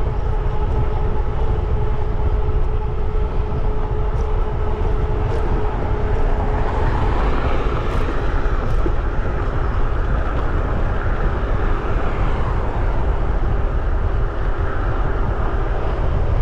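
Wind rushing over the microphone and tyres rolling as an electric bike rides along, with a steady whine from its rear hub motor.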